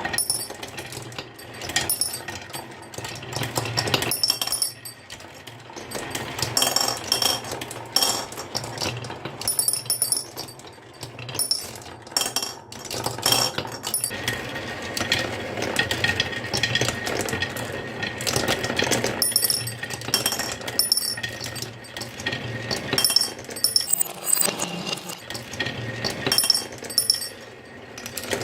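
Marbles rolling and clattering down a wooden marble run, with many rapid clicks and clinks as they knock against the track and each other.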